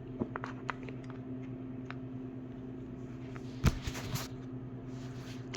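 Scattered small clicks and taps of metal sockets and bits being handled and fitted on a ratchet, with a louder pair of clicks about three and a half seconds in, over a steady low hum.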